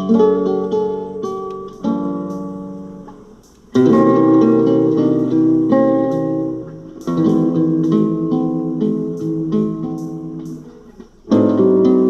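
Acoustic guitar playing a slow intro: chords struck and left to ring and fade, with fresh strong chords at the start and at about four, seven and eleven seconds in.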